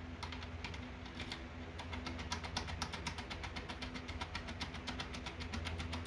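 A rapid series of light metallic clicks, roughly seven a second and getting denser after about two seconds, as a foil-impressioning pick is worked into the keyway of a Securemme K1 European-profile cylinder lock. A steady low hum sits underneath.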